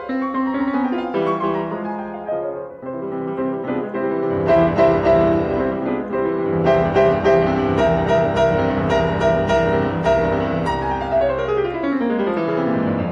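Background piano music. It grows fuller with low notes about four seconds in, and a run of notes falls in pitch near the end.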